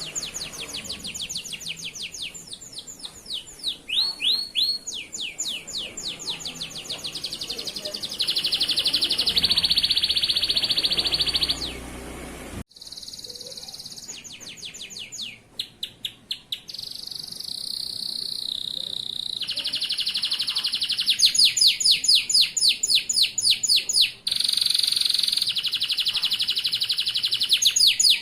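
Male canary singing a long, loud song of rapid repeated trills and sustained rolls, high-pitched, broken once by a sudden short gap about halfway through.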